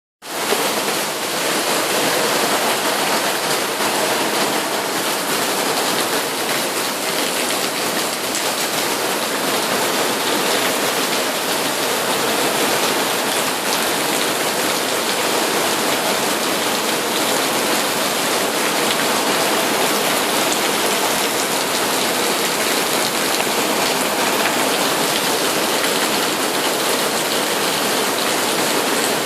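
Heavy rain falling steadily, a dense, even hiss of rain on surfaces.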